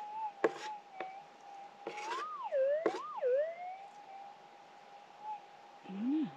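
Minelab GPX 6000 metal detector's steady threshold hum, with a target signal about two seconds in that swoops up in pitch and back down twice as the scoop is passed over the coil. A few sharp clicks of rocks knocking in the plastic scoop.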